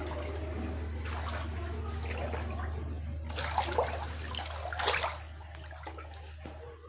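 Feet wading through ankle-deep floodwater, the water sloshing and splashing, loudest a few times between about three and five seconds in, over a steady low hum.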